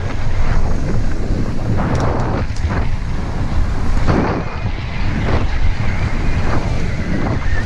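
Heavy wind buffeting a camera microphone, a dense low rumble, with a few brief knocks and rattles scattered through it.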